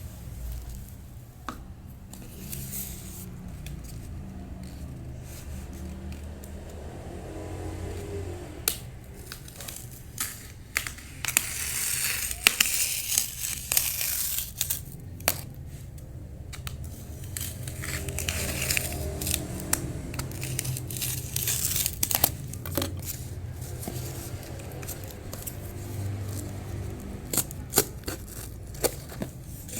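Cardboard being cut and handled: scratchy tearing and crinkling with sharp clicks and snips, busiest in the middle of the stretch, over a steady low hum.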